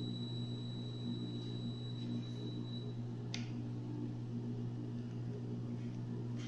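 Electronic apex locator's alarm sounding one steady high beep while its meter reads at the apex, cutting off about three seconds in. A single sharp click follows a moment later, over a steady low hum.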